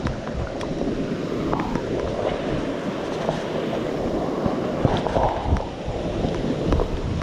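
Steady rushing water from a waterfall or stream, with a few faint knocks and clicks over it.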